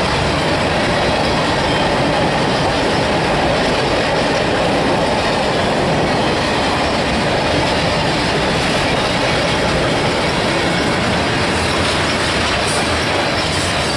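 Canadian Pacific freight cars rolling past at steady speed, a continuous rumble and rattle of wheels on rail.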